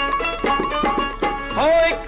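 Background music in a folk style: a plucked string melody over light percussion, with a voice gliding up into a held sung note about one and a half seconds in.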